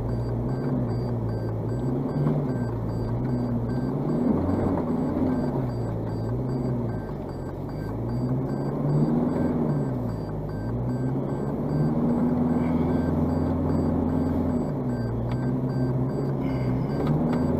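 Four-wheel drive's engine heard from inside the cabin, working along a muddy, rutted bush track, its revs rising and falling every few seconds over a steady low rumble.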